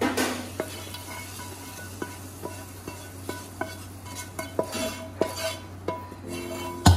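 Wooden spatula scraping and knocking against a metal frying pan and pot as a chilli-and-curry-leaf tempering is scraped into a pot of sambar and stirred. The knocks come irregularly, about one or two a second, several with a short metallic ring.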